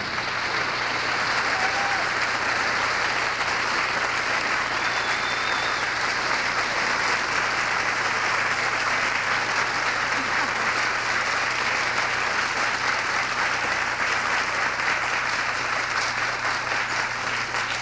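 Large studio audience applauding steadily after a song, a sustained, even wash of clapping.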